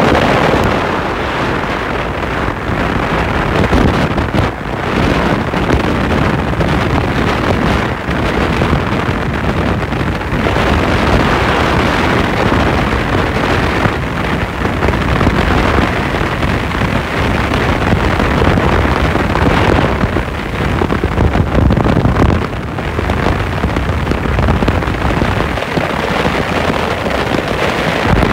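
Wind buffeting the microphone inside a moving car, mixed with engine and tyre noise from driving along the road; the rush of noise rises and falls in gusts.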